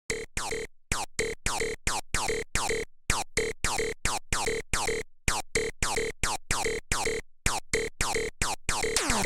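Electronic music: a fast run of short, chopped synth stabs, each sliding down in pitch, starting suddenly out of silence and broken by a few brief gaps.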